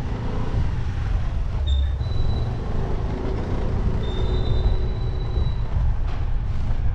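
Engine of a two-wheeler running as it moves off at low speed, with a steady low rumble of wind on the microphone. A faint thin high tone sounds briefly twice.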